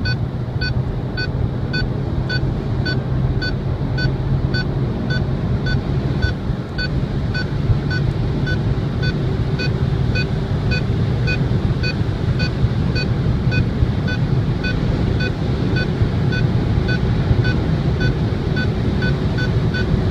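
Skoda Octavia Scout's Stage 1 tuned 1.8 turbo engine and road noise heard from inside the cabin under full-throttle acceleration at highway speed. An electronic beep repeats about twice a second throughout.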